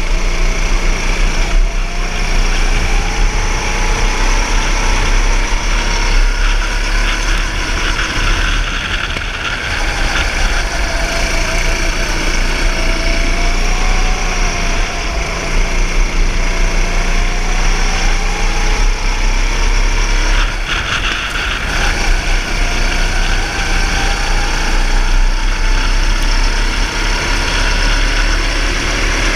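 Go-kart engine running at speed under the driver, its pitch rising and falling again and again as the kart accelerates and slows through the laps.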